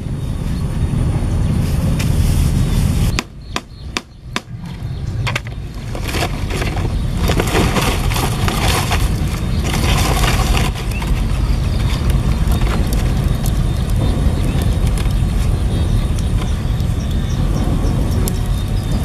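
Steady low wind rumble on the microphone, with a brief dip and a few sharp clicks a few seconds in, then a stretch of rustling and crackling while a small charcoal-and-twig fire is lit and tended.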